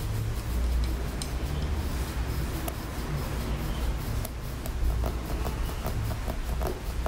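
Stainless steel massage plate, a Graston-style scraping tool, rubbing and scraping over the skin of the lower leg in repeated strokes, with small clicks as the edge moves across the calf and shin.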